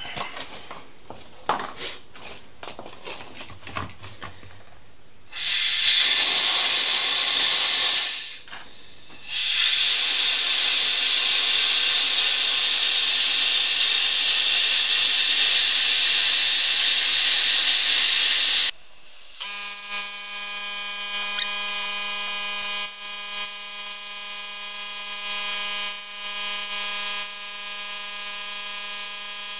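Compressed air hissing loudly from an air-powered caulking gun laying sealant, in a short blast about five seconds in and then a long one of roughly nine seconds, after a few light handling clicks. About nineteen seconds in, the hiss stops and a steady whine of several tones takes over.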